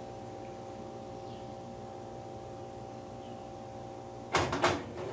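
Electrolux LTE06 top-loading washing machine running with a steady, even hum, then a short burst of clattering knocks just over four seconds in.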